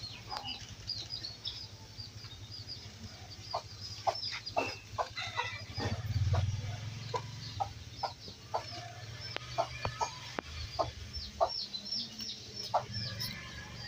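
Birds calling: scattered short clucking calls and many quick high chirps, over a steady low hum.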